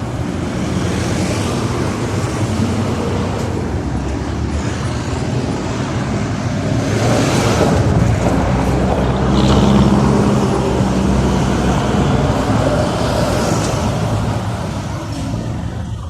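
City street traffic: a steady rumble of car and bus engines and tyres, with vehicles passing close by, loudest about ten seconds in.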